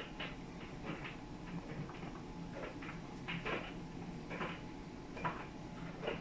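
LG RC91V9AV3Q heat-pump clothes dryer running: a steady low hum from the motor and compressor, with soft, irregular swishes and thumps of laundry tumbling in the turning drum every second or so.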